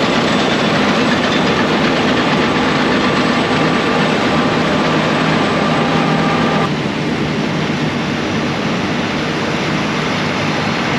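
Heavy farm machinery running loudly and steadily with a mechanical rattle. A high whine in the noise stops about two-thirds of the way through, and the running eases slightly.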